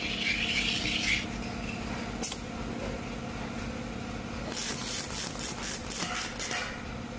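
Glass protective-film laminating machine running with a steady hum while its edge-cutting head trims film along a glass pane. There is a short hiss at the start, a single click about two seconds in, and a rapid run of short hissing strokes in the second half.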